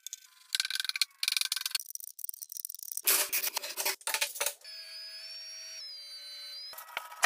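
Quick run of workshop handling noises: wooden strips and bar clamps clattering and scraping as a cutting-board glue-up is clamped. About four and a half seconds in, a steady whine from a benchtop thickness planer's motor takes over, then more clattering near the end.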